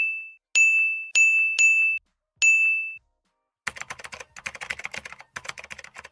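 Animation sound effects: a run of bright, single-note dings, each dying away quickly, then from about three and a half seconds in a fast clatter of keyboard-typing clicks in two bursts, as a title is typed out.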